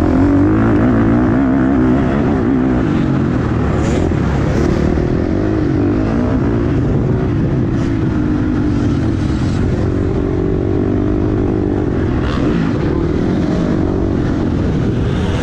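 Motocross bike engine running hard under acceleration, its pitch rising and falling with the throttle and gear changes, heard close up from a helmet-mounted camera.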